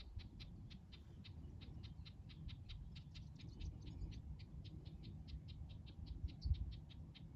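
A small bird giving a rapid, steady series of short, high call notes, about five a second, over a faint low rumble.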